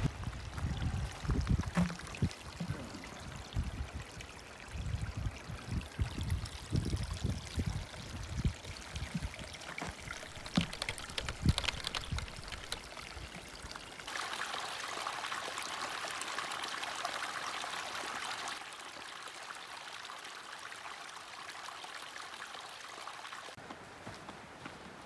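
A small shallow creek running over stones, a steady rush of water that comes in about halfway through and drops quieter a few seconds later. Before it, irregular low thumps and rustling.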